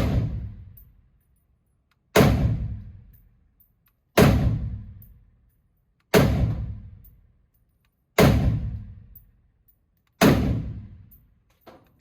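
M1 Garand rifle in 7.62x51 firing semi-automatic, six loud shots about two seconds apart, each trailing off in a long echo.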